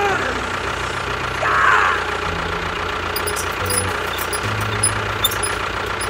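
Tractor engine running steadily, with a brief louder burst of noise a little under two seconds in.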